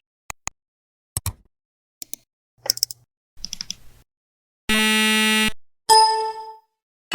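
A series of short editing sound effects separated by silences: several quick clicks, some in pairs, then a rapid run of ticks, then a held buzzy electronic tone lasting under a second, and a short ringing chime near the end.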